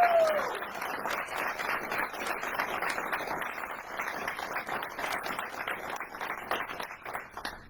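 Audience applauding, with one cheering shout at the start; the clapping dies away near the end.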